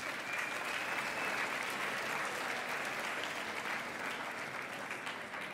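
A large audience applauding steadily, the clapping beginning to ease off near the end.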